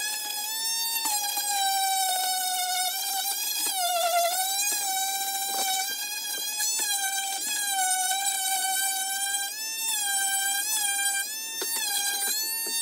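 Small corded electric detail sander running on wood, a steady high whine that wavers and dips in pitch again and again as it is pressed into the board.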